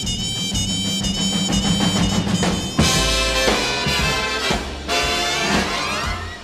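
Big-band swing music with no singing: brass and drum kit playing an instrumental passage, growing louder about three seconds in.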